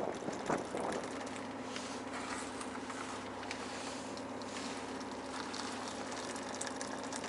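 Fishing boat's engine running steadily with a low, even hum, under wind and water noise.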